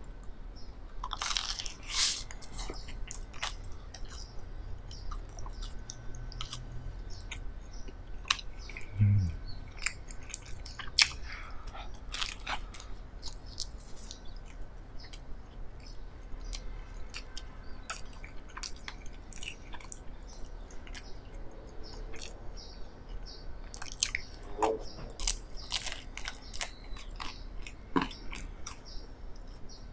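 A person biting and chewing a slice of whole wheat raisin bread spread with strawberry jam: a run of bites and small chewing clicks, with louder bites about two seconds in and again around twenty-five seconds in.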